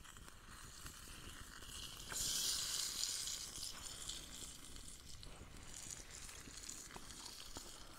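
Pork sizzling quietly in a pan over a small fire, cooking slow. The sizzle swells about two seconds in and eases back a second or so later, with a few faint clicks.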